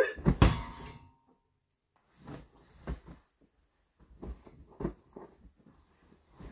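A person climbing onto a bed and settling onto the pillow: a loud thump and rustle of bedding in the first second, then softer rustling and bumps of bedding being shifted.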